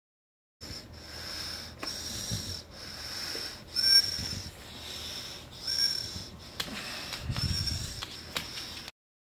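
Siberian Husky's laboured, wheezy breathing during an epileptic seizure: rhythmic hissing breaths about once a second, some with a short whistling wheeze. The audio cuts out completely for a moment at the start and again about a second before the end.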